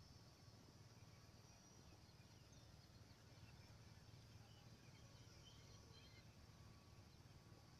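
Near silence: faint outdoor ambience with a steady low hum and a few faint, scattered high chirps.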